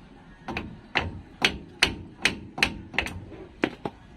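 Hammer striking metal, about ten sharp blows at a quick, slightly uneven pace of two to three a second, each with a short ring.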